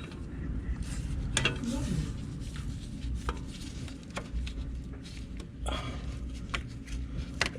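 Scattered light clicks and clatter from hands working along the brake pad wear sensor cable and its plastic clips, over a steady low rumble.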